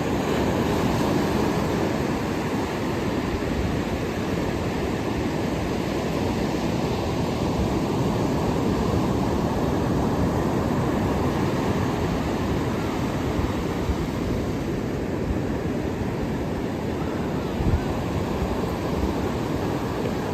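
Ocean surf washing steadily against the shore, a continuous low rushing with slow swells in level. A short thump sounds near the end.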